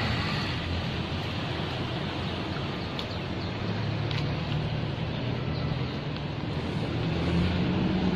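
Vehicle engine idling steadily, a low hum that grows slightly louder near the end.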